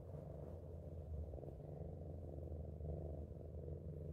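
Young gray tabby cat purring steadily, a continuous low rumble with a fast, even pulse, close to the microphone.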